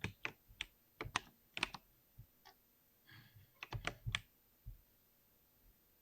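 Typing on a computer keyboard: irregular runs of key clicks, thinning out about two seconds in, a quick flurry a little before four seconds, then the typing stops about five seconds in.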